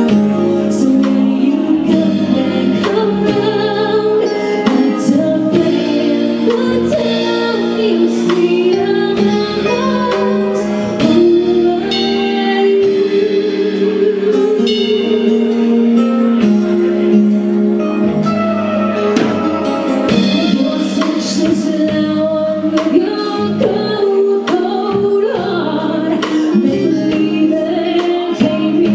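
A live band playing a song, with a woman singing lead into a microphone over electric guitar, drums and keyboard.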